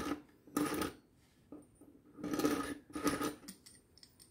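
A steel knife blade drawn through a Surmene handheld two-wheel knife sharpener, grating on the sharpening wheels in short strokes: two quick ones at the start, then two more about two seconds in. A few faint clicks follow near the end.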